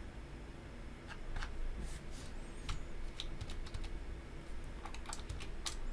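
Computer keyboard typing: irregular keystrokes, starting about a second in, as a command is typed into a terminal.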